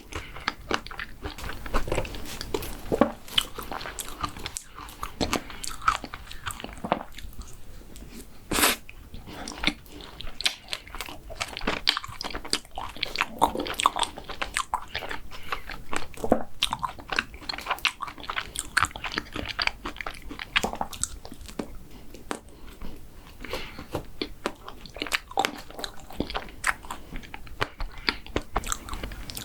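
Close-miked eating sounds: a person biting into and chewing crunchy mint-chocolate desserts, with many sharp, irregular crunches and wet mouth clicks.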